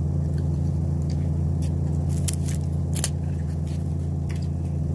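Eating fried chicken close to the microphone: scattered sharp crackles and clicks of chewing and handling the crisp food. A loud steady low hum runs under it all.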